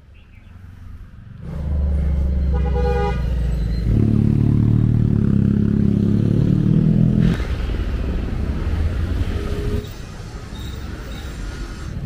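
Road traffic: a vehicle horn honks once, briefly, about three seconds in, then motorcycle engines run close by for a few seconds before fading into general traffic noise.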